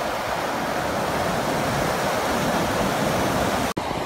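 Ocean surf washing up the sand, a steady rush of foaming water, broken off sharply near the end.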